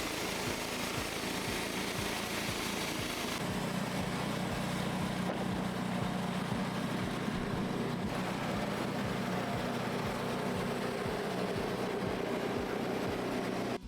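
Portable sawmill's small gasoline engine running steadily, with a slight change in its note about three and a half seconds in.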